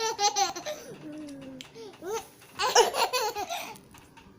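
Laughter in two bouts: a quick run of laughs at the start and another bout from just under three seconds in.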